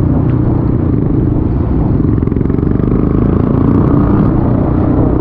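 Motorcycle engine running steadily during a ride, a continuous low-pitched engine sound with no sharp events.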